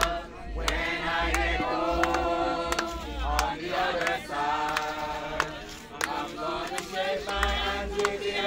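A group of mourners singing a gospel hymn together, without instruments. A few short sharp clicks are heard among the singing.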